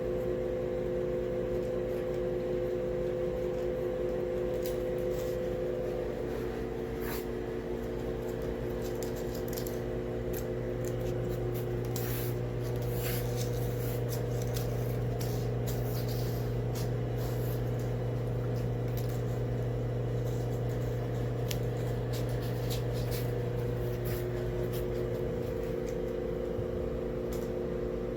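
A steady machine hum with a few fixed low tones, with scattered light clicks and ticks over it.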